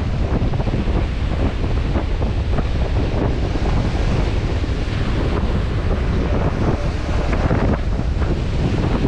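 Strong wind buffeting the microphone, with surf breaking and washing up the beach underneath.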